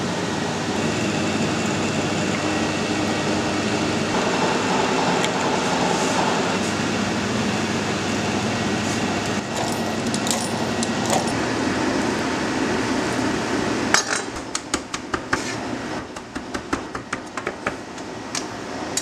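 Steady kitchen noise with light clinks, then from about fourteen seconds a knife chopping quickly on a cutting board in a run of short, sharp knocks, mincing raw beef by hand.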